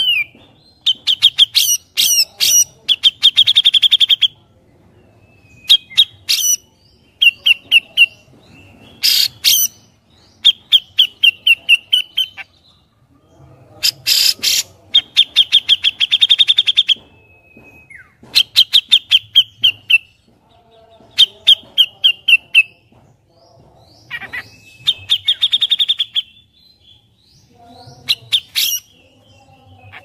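Grey-cheeked bulbul (cucak jenggot) singing: about a dozen loud bursts of fast, rattling chatter, each a second or two long, with short pauses between. Some bursts carry sharp clicking notes.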